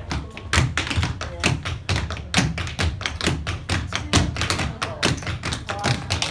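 A group of cloggers dancing a cappella, their clogging taps striking the floor in a fast, loud, uneven rhythm of many strikes a second, with no music.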